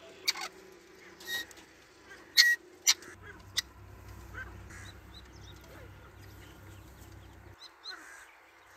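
Grey francolin giving several loud, harsh single call notes, spaced irregularly over the first few seconds, followed by a faint low hum and a couple of brief high chirps near the end.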